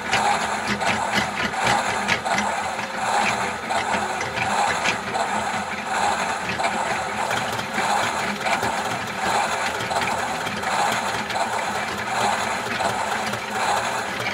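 Toy washing machine running a wash cycle: a steady, loud mechanical whirring rattle with a regular pulse about every three-quarters of a second, cutting off suddenly near the end.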